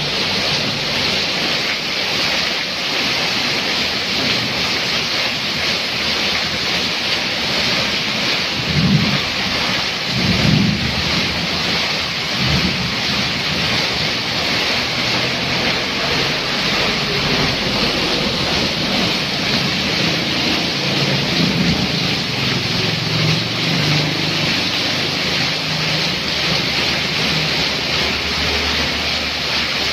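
Heavy downpour: a steady dense hiss of rain on the road and roof, with water pouring off the eaves. A few low rumbles come and go under it, the loudest about nine and ten seconds in.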